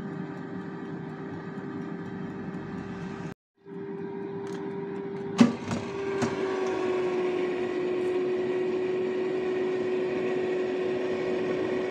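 Air fryer running: its fan hums steadily with a clear tone. About five seconds in comes a sharp click as the basket drawer is pulled open, and after it the hum's tone settles slightly lower.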